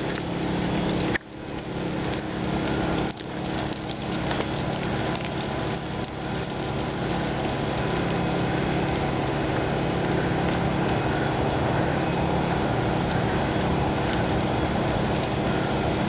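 Several portable gasoline generators running steadily, a constant engine hum with an even drone. The level dips briefly twice in the first few seconds.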